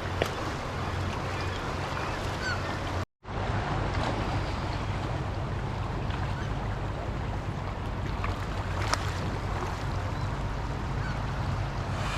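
Steady rush of water and wind noise with a few faint bird calls, broken by a brief dropout about three seconds in.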